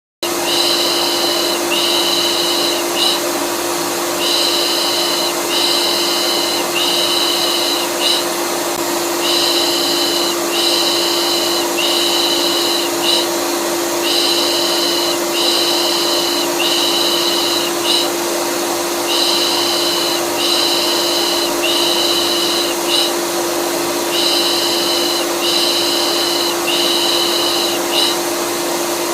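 Vacuum cleaner running steadily with a constant hum, overlaid with a rhythmic 'pış pış' shushing lullaby sound in groups of three about every five seconds, used as a soothing noise for colicky babies. It starts abruptly right at the beginning.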